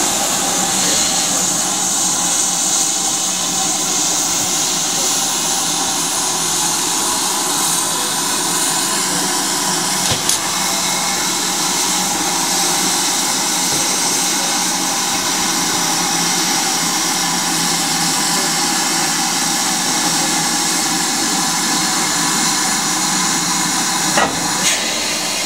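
Steam hissing steadily and loudly from a standing GWR 5600 class 0-6-2 tank locomotive, No. 5643. Two brief knocks, one about ten seconds in and one near the end.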